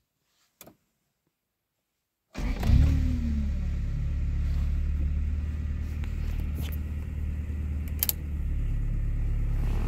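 1986 Toyota Corolla E80 engine warm-started: after a couple of seconds of quiet it fires almost at once, flares briefly and settles into a steady idle. It runs through a new exhaust and middle muffler, now free of exhaust leaks. A sharp click about eight seconds in.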